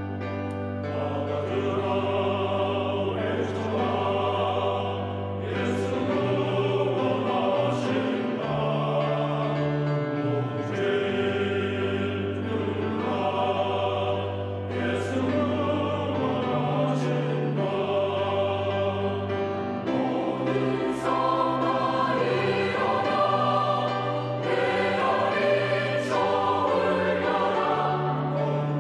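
Church choir singing an anthem in parts over instrumental accompaniment, with sustained chords and a steady bass line.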